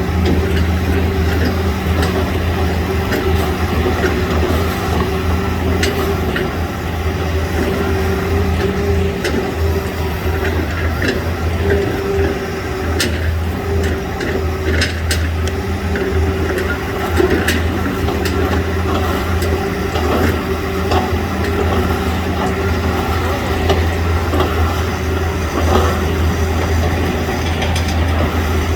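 Hitachi excavator's diesel engine running steadily under work, a low even drone, with scattered sharp knocks and cracks over it.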